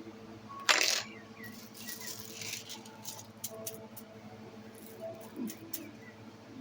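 Small hard craft supplies clattering and rattling as they are handled and put away: one loud clatter about a second in, then rustling and scattered light clicks.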